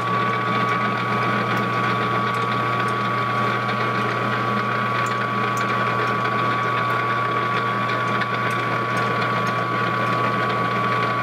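A 14x40 metal lathe running steadily with its spindle turning: an even whine and hum from the machine, with the boring cutter finished cutting and no chip noise.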